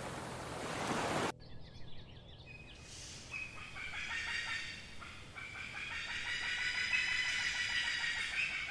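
Surf and wind on a beach, cut off abruptly about a second in. Then quieter outdoor sound of chickens clucking and birds chirping, with many short calls.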